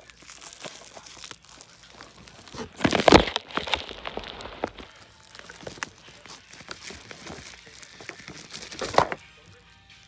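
Cardboard box and plastic packaging being handled, rustling and crinkling with small clicks, with louder bursts about three seconds in and again about nine seconds in.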